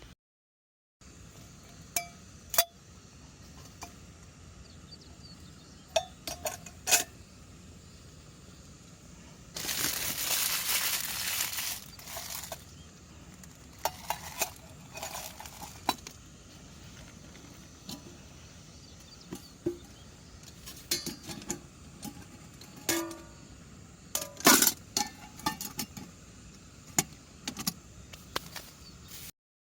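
Scattered light clinks and knocks of camp cookware and utensils, with a steady hiss for about three seconds, roughly ten seconds in.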